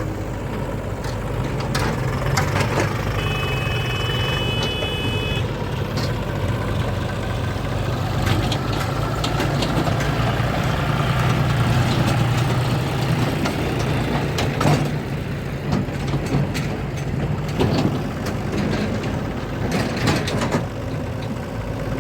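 Diesel engine of a JCB 3DX backhoe loader running steadily under load while loading mud, with scattered knocks and clanks. A brief high steady tone sounds about three seconds in.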